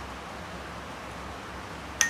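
Steady background hiss, then a sharp clink of a metal spoon against a small glass bowl of masala paste at the very end, ringing briefly.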